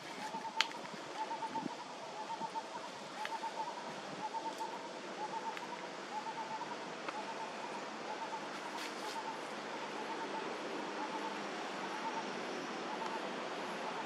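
Outdoor ambience: a steady hiss with a short chirping call repeated about twice a second, fading out about two-thirds of the way through, and a few faint clicks.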